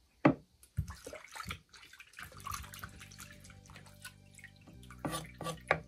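Water splashing and dripping as pumpkin pieces are rinsed by hand in a clay bowl of water. Sharp knocks of a knife on a wooden cutting board come shortly after the start and twice more near the end.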